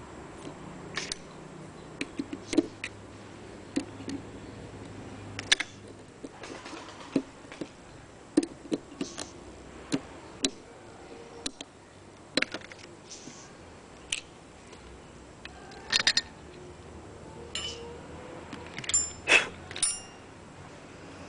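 Irregular small metallic clicks and clinks of hand tools working on a Citroën 3CV brake master cylinder, with quick runs of sharper clinks about two-thirds of the way through and again near the end.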